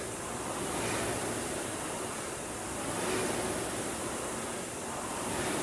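Concept2 indoor rowing machine's air-resistance flywheel fan whooshing, swelling with each drive stroke a little over two seconds apart.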